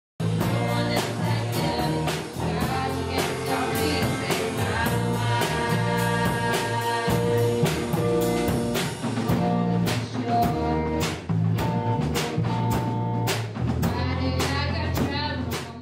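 Band music with a drum kit keeping a steady beat, guitar and a singing voice, starting suddenly and cutting off abruptly at the end.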